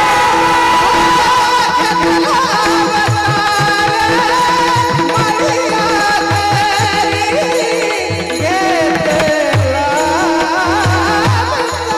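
A high male voice sings a devotional melody in long, ornamented held notes, over a steady drone and a drum beating a rhythm underneath.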